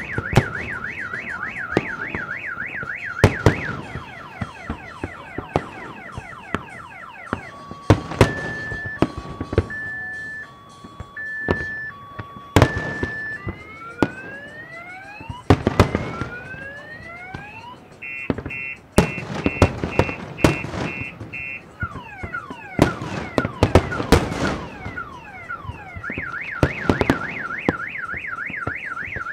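A car alarm sounds through its cycle of siren patterns. It starts with a fast warble, then a two-tone high-low wail, then repeated rising whoops, then rapid beeping, and the fast warble returns near the end. Firework bursts bang and crackle throughout, many loud single bangs among them.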